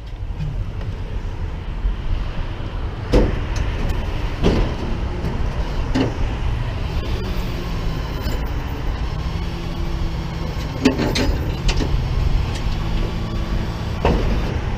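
Tow truck's engine running, joined about seven seconds in by a steady higher hum as the hydraulics for the lift are engaged, with several sharp knocks and clanks.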